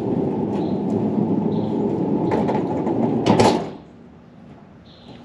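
Heavy steel tool chest on a sliding carriage rolling along the truck-bed track on 608 ball bearings: a steady rumble for about three and a half seconds that ends in a loud knock, then stops.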